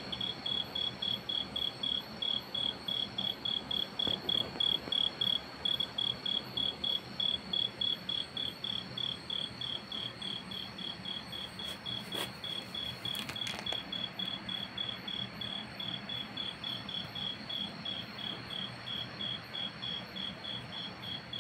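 Insect chirping steadily in the night, a high, evenly pulsed chirp about four or five times a second, with a faint click or two near the middle.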